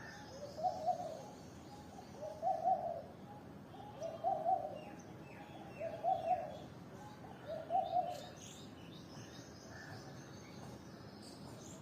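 A bird giving five low cooing calls, one about every two seconds, then falling quiet, with faint higher chirps from other birds.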